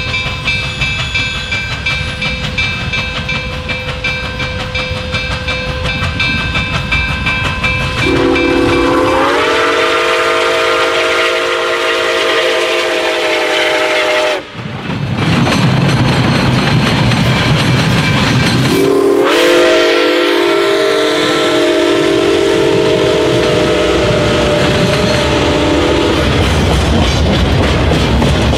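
Nickel Plate Road 765, a 2-8-4 Berkshire steam locomotive, blowing its chime whistle in two long blasts, each sliding up in pitch as it opens. The rumble and clatter of the passing train fill the time between the blasts and after them.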